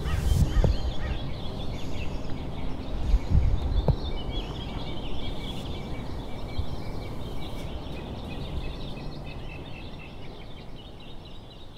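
Outdoor mountain ambience: wind rumbling on the microphone, strongest in the first few seconds and then dying away, with birds chirping throughout.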